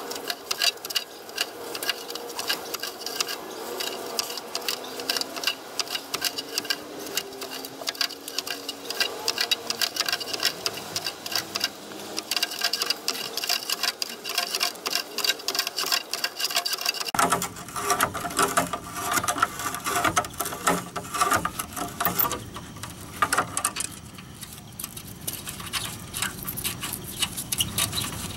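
Fast, dense clicking and grating of metal on metal as Knipex Cobra pliers turn a badly rusted, nearly eaten-away tie rod end nut off its threads. About 17 seconds in the sound becomes fuller and lower.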